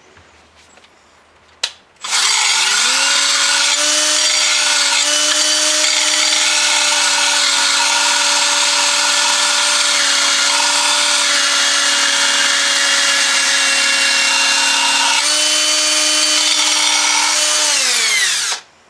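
An electric grinder switches on with a click, spins up and runs steadily with a pitched motor hum and a harsh high hiss while grinding the edge of a steel lawn mower blade to sharpen it. Near the end it is switched off and winds down with falling pitch.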